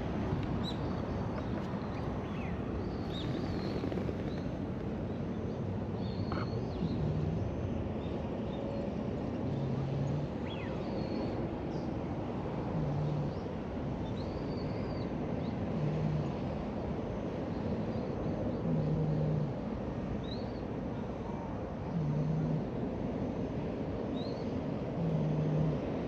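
Orange-and-white cat snoring in its sleep: a short, low snore about every three seconds.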